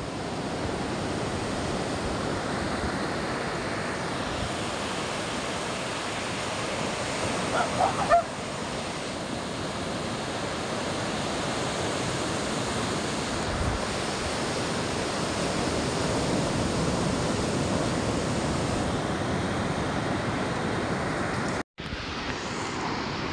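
Surf breaking on a sandy beach: a steady wash of waves, with a few short higher sounds about eight seconds in and a momentary break near the end.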